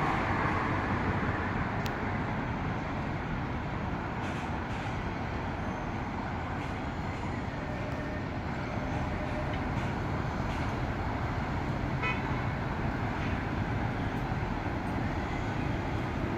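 Steady hum of road traffic, with a few faint clicks and a brief chirp about three quarters of the way through.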